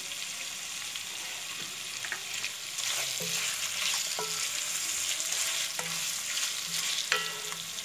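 Keema (minced meat) sizzling in oil in a pan while a spoon stirs and scrapes it, with short scraping strokes now and then. The sizzle grows louder about three seconds in.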